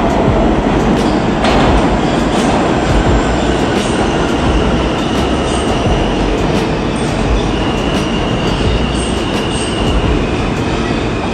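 New York City subway train running on the rails: a loud, steady rumble, with thin, high wheel squeal coming in from about four seconds in.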